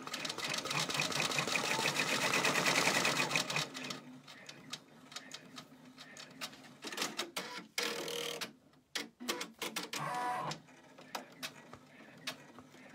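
Brother PR655 six-needle embroidery machine stitching a small circle through a vinyl key fob: a dense, rapid needle clatter for about the first four seconds, then quieter running with scattered clicks.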